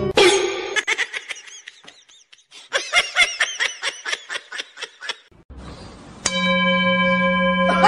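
A person laughing in a run of short, high, quick bursts. About six seconds in, a steady hum of several even tones starts.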